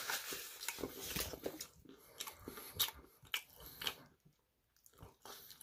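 Crisp Korean fried chicken being bitten and chewed close to the microphone: a run of faint, irregular crunches that die away about four seconds in.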